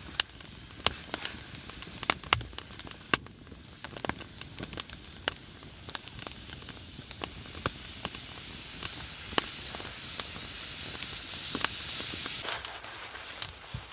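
Wood fire crackling, with irregular sharp pops over a steady hiss that swells in the second half and falls away near the end.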